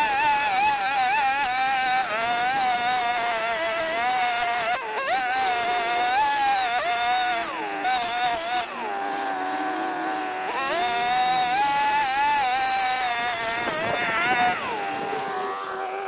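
Riwall RPB 517 petrol brushcutter's two-stroke engine running at high revs while cutting dense weeds, its pitch wavering as the load changes. It drops back to idle for about two seconds around eight seconds in, revs up again, and falls back to idle near the end.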